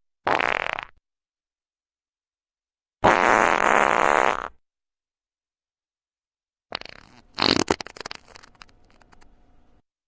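Three separate farts: a short one just after the start, a longer steady one of about a second and a half in the middle, and a last one of rapid crackling pops that tapers off.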